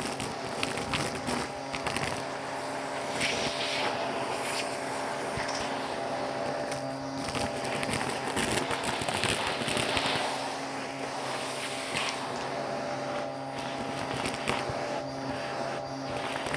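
Vacuum cleaner running steadily through a crevice tool, sucking up dust and small hard debris (beads and crystals) from a shag rug. The debris crackles and rattles up the tool in dense, uneven bursts over the motor's steady hum.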